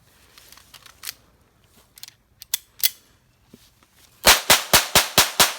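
A few sharp clicks, then a rapid string of about seven shots from a semi-automatic .22 LR pistol, four to five a second, fired a little over four seconds in.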